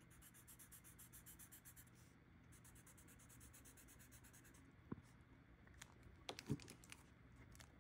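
Felt-tip marker scribbling on a paper card: very faint, quick back-and-forth colouring strokes in two runs, pausing briefly about two seconds in. A few light clicks follow near the end.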